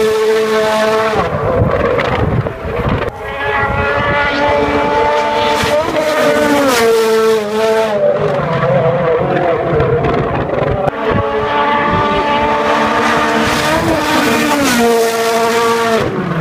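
Turbocharged four-cylinder World Rally Car engines running flat out as the cars come past on a tarmac stage. The engine note climbs and drops sharply again and again at the gear changes.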